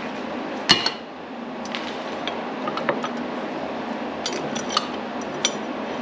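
Steel brake bracket and caliper clinking as they are handled and fitted together: one sharp clank less than a second in, then scattered lighter clicks, over a steady shop hum.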